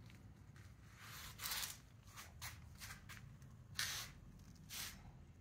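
Several brief rustling, scuffing noises, about four in all, the loudest about a second and a half in and again near four seconds, over a faint steady low hum.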